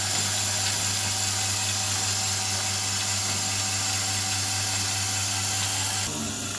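Milking machine's vacuum pump running steadily, a constant low hum with a hiss over it; the hiss eases slightly near the end.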